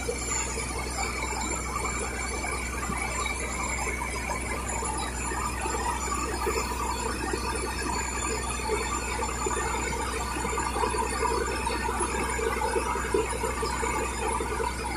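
Continuous squealing from diesel being hand-pumped through a hose into an excavator's fuel tank, over a steady low hum.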